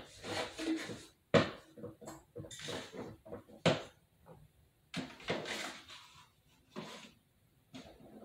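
Objects being picked up and set down on a plastic drawer unit: a few sharp knocks and clatters with rustling between them.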